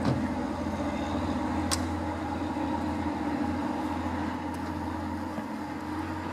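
TransPennine Express Class 185 diesel multiple unit running through the station, its underfloor diesel engines giving a steady drone.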